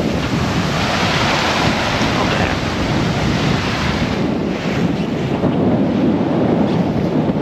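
Wind buffeting the microphone over the rush of waves and spray along a sailing yacht's hull as it sails through rough sea. The high hiss of the water eases about four seconds in.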